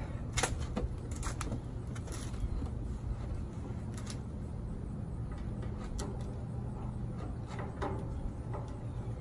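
Scattered light clicks and knocks of a screwdriver and parts against the grill's metal frame during assembly, over a steady low rumble.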